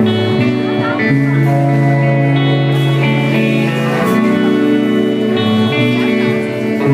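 Live band music: held chords over a bass line that moves to a new note every second or so.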